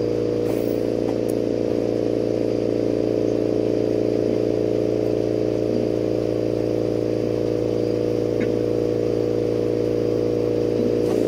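Steady machine hum of lampworking studio equipment running beside the torch, with a few faint ticks as tweezers pick at the hot glass bead.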